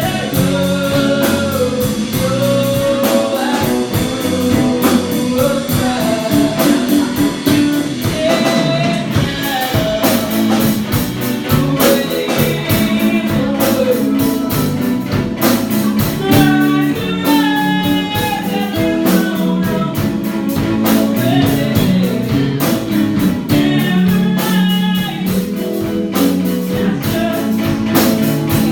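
A rock band playing a song: guitar and drum kit with a singing voice.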